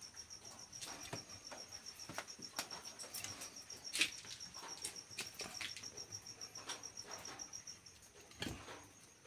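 Cricket chirping in a fast, even, high pulse that breaks off about eight seconds in. Scattered light clicks and knocks sound over it, the sharpest about four seconds in.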